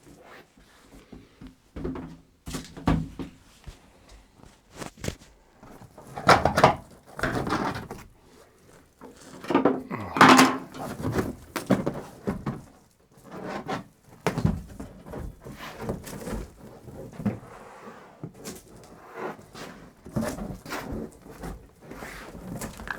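Irregular knocks, thuds and scraping from wall panels being handled and pushed into place inside a van's cargo area. There are a few louder, longer scraping stretches around the middle.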